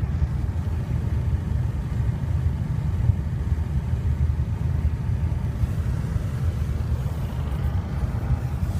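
Kia Spectra engine running steadily, with the engine knock the owner is recording.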